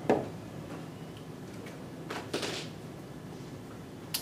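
Dry-erase marker on a whiteboard: a sharp knock right at the start, a longer scrape about two seconds in, and a short click near the end.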